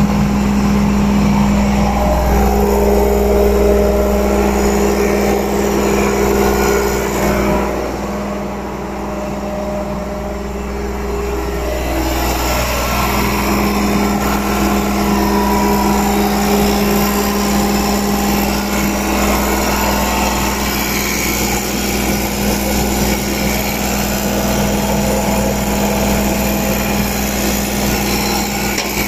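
Engine of a construction machine running steadily at idle, a constant low rumble with a steady hum. It briefly sounds duller and a little quieter about a third of the way through.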